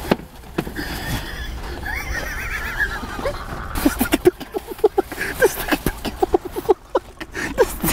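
A person's stifled, high-pitched laughter: a wavering squeal, then quick short giggles at about four a second through the second half.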